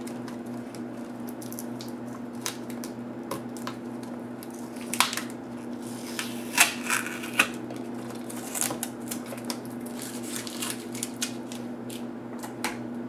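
Hands peeling tape and freeing the flat video cable from the back of a laptop LCD panel: scattered crackling and light clicks, with a few sharper snaps around the middle, over a steady low hum.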